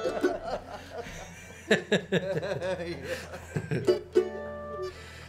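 Mandolin and banjo noodling between tunes: scattered picked notes and a few held notes, with a short chuckle.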